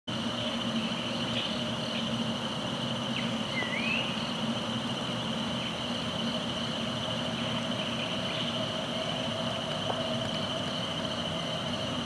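Forest dawn chorus: a steady high insect drone with a soft pulse, a faint low hum underneath, and scattered short bird calls, among them a rising whistle about three and a half seconds in.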